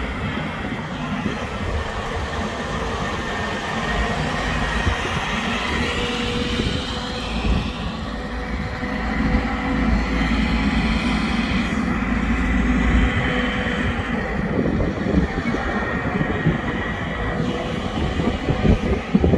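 Manitou MT625 compact telehandler's diesel engine running as the machine drives past and turns, with a steady whine over the engine note.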